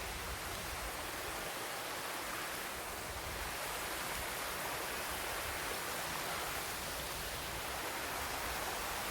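Steady, even rush of flowing mountain water.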